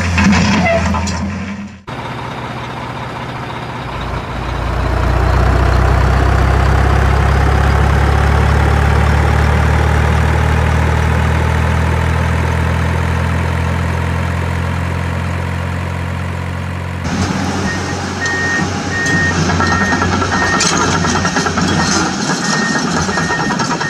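Heavy-machinery engine sound running steadily and low, swelling a few seconds in. After a sudden cut, it gives way to engine noise with a reversing alarm beeping about twice a second.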